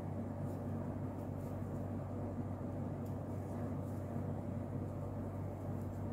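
Steady low hum under an even background hiss, with no distinct events.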